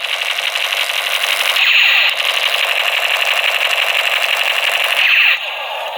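Rapid automatic gunfire sound effect, a fast continuous rattle that sounds thin and tinny, dropping in level a little over five seconds in.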